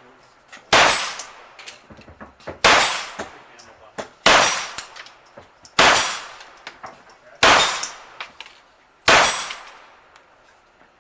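Six shots from a Smith & Wesson Model 22A .22 LR semi-automatic pistol, fired slowly and evenly about one every one and a half seconds. Each report is followed by the ring of a steel target being hit.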